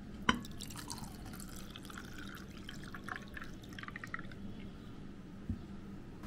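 Watermelon juice poured from a jug into a glass over ice cubes and a lime slice, trickling and splashing steadily. A single sharp click comes just after the start.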